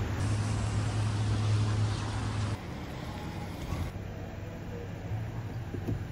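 City street ambience: a steady traffic rumble that drops suddenly about two and a half seconds in, leaving a quieter even street hum.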